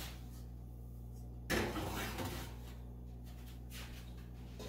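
Bread pan set down on a wire oven rack: a knock about a second and a half in, followed by a short scrape as the pan is slid into the oven.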